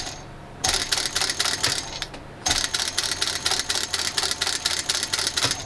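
JUKI DSU-142 cylinder-bed industrial sewing machine stitching through a leather bag handle: rapid clattering needle strokes, about six or seven a second, in two runs with a short pause between them as the work is repositioned.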